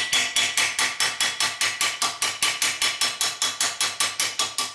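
Steel hammer tapping quickly and evenly on a steel motorcycle exhaust pipe laid on a vise's flat spot, about six blows a second with a metallic ring, working an out-of-round section of pipe back to round.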